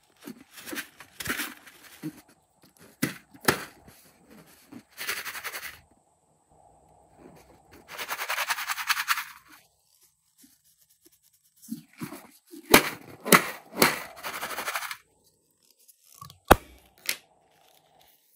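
Slime-making handling sounds: a run of irregular short clicks, crackles and hissy bursts with quiet gaps between, the longest burst about eight seconds in and a cluster of sharp clicks near the middle.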